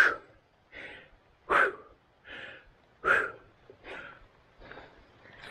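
A person breathing hard and rhythmically from the strain of pedalling a bicycle uphill: a strong breath about every second and a half, with softer breaths between.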